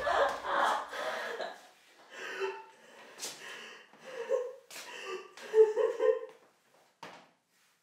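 A woman sobbing and gasping for breath in ragged, broken bursts with short whimpers, dying away about seven seconds in.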